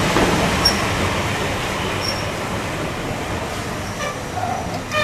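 Passenger train carriages rolling past a station platform as the train pulls out, a steady rumble of wheels that slowly fades.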